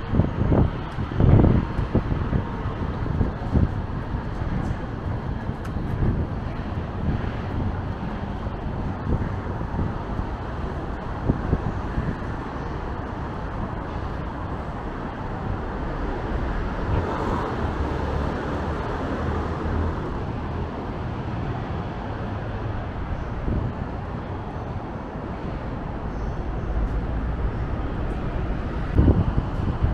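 City street ambience: a steady wash of road traffic, with wind buffeting the microphone in gusts near the start and again near the end.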